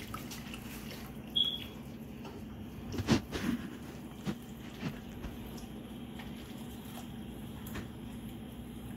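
Wire whisk stirring a thickening cream sauce in a metal pan: scattered clinks and scrapes of the wires against the pan, loudest in a quick cluster about three seconds in, over a steady low hum. A short high squeak comes about a second and a half in.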